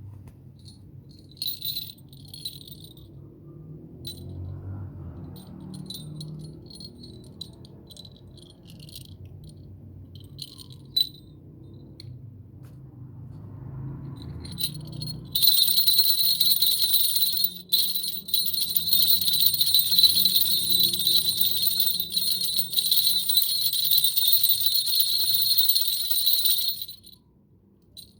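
Size 1 falconry bells jingling: a few light, separate tinkles for the first half, then shaken continuously with a bright, high ring for about eleven seconds before stopping suddenly.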